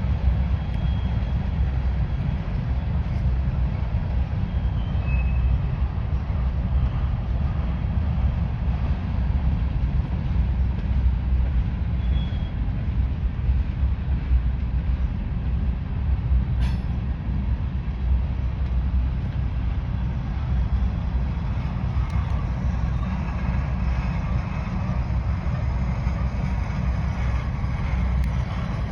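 Norfolk Southern grain train of covered hopper cars rolling past with a steady low rumble. A few brief faint squeals come in the first half, and a single sharp click comes about two-thirds of the way through.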